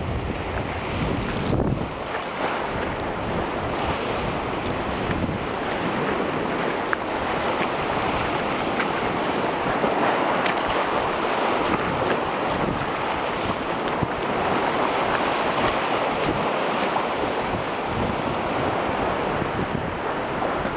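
Small Lake Michigan waves washing over a stony shore, a steady hiss, with wind rumbling on the microphone, heaviest in the first couple of seconds.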